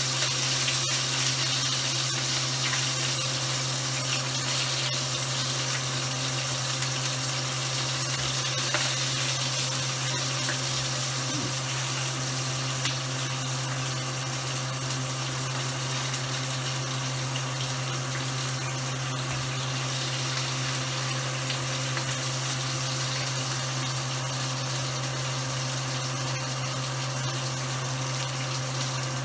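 Hot oil sizzling in a frying pan on an old stove: a steady hiss that eases slightly over time, over a steady low hum.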